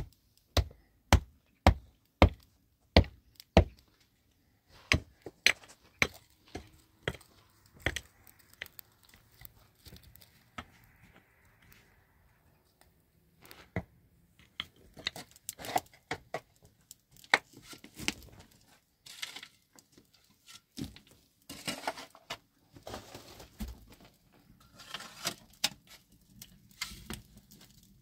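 Hand tools digging stony soil: a quick run of sharp strikes, about one every half second, then scattered knocks and scraping of a shovel and mattock in earth and stones.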